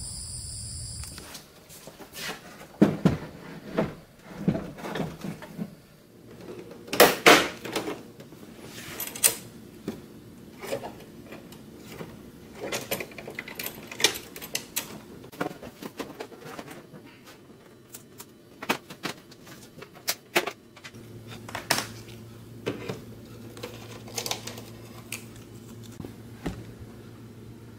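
Irregular plastic clicks, taps and knocks from hands working a screwdriver on a mini-split indoor unit's plastic casing and terminal cover, the loudest knocks a few seconds in. Crickets chirp in the first second, and a low steady hum comes in about three quarters of the way through.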